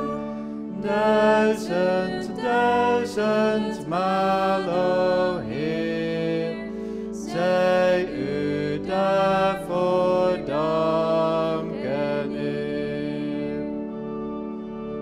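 Church hymn being sung, a slow verse over a steady held instrumental accompaniment. Near the end the singing stops on the last line and the accompaniment holds the final chord.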